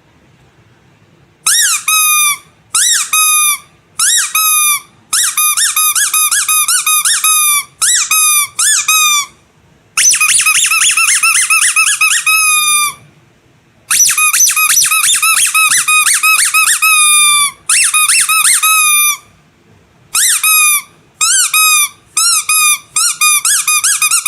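Rubber squeaky animal toy squeezed over and over: quick runs of high squeaks, several a second, each dipping slightly in pitch, in bursts broken by short pauses, starting about a second and a half in.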